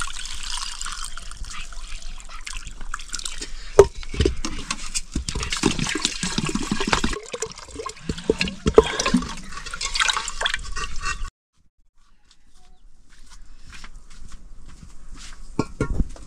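Water splashing and pouring, with scattered knocks, that cuts off abruptly about eleven seconds in; after that, only faint scattered clicks and taps.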